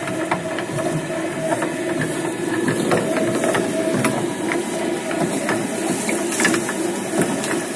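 Electric twin-shaft shredder running, its gear-driven toothed cutter discs chewing neem leaves and twigs: a steady motor and gear hum with frequent irregular snaps and clicks.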